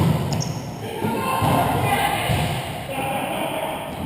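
A volleyball being struck: a sharp thud right at the start, in a reverberant gym, with players' voices afterwards.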